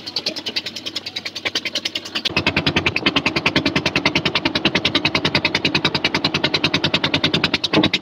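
A river boat's engine chugging in a fast, even beat of roughly seven thumps a second while the boat is under way. It is quieter at first and becomes louder and closer about two seconds in.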